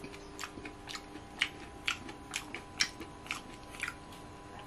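A person chewing food close to the microphone, with short wet mouth clicks coming about twice a second.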